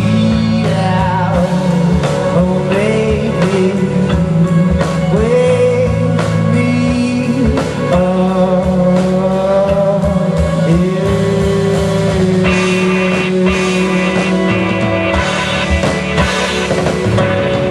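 Rock band playing live: a singer holding and sliding long notes over guitar, bass and drum kit.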